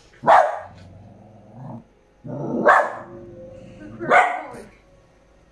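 Pet dog barking at nothing, three loud single barks a second or two apart.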